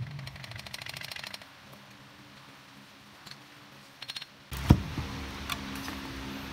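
Ratchet wrench clicking rapidly for about a second and a half, with a few more clicks later. Then a single loud knock about four and a half seconds in, followed by a low steady hum.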